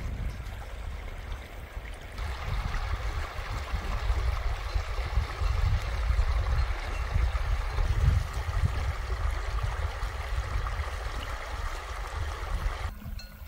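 Shallow mountain stream trickling and gurgling over pebbles close to the microphone, louder from about two seconds in and cutting off sharply just before the end, with a low rumble underneath.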